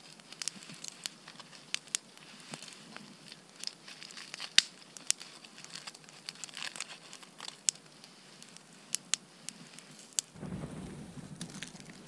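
Small campfire of twigs and branches crackling with irregular sharp snaps, just fed with fresh wood after burning low. Near the end a low rustling and crunching takes over.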